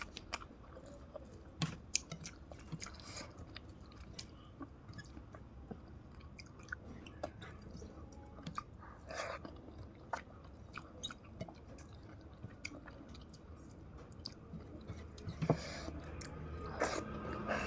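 A person chewing a mouthful of rice and small puti fish close to the microphone, with irregular soft clicks and wet smacks of the mouth.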